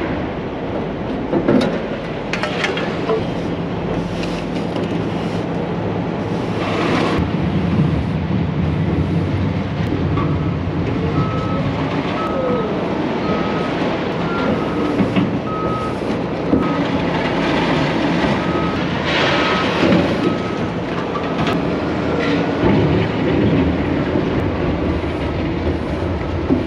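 Heavy diesel loaders and excavators running in a scrap yard, with scattered loud clanks and crashes of scrap metal. From about ten seconds in, a vehicle's reverse alarm beeps steadily for about ten seconds.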